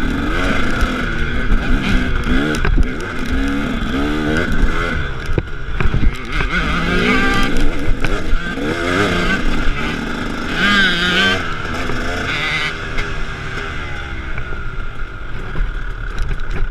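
KTM 300 two-stroke dirt bike engine heard close up from the bike, revving up and down again and again as it is ridden over rough trail, with occasional knocks from bumps.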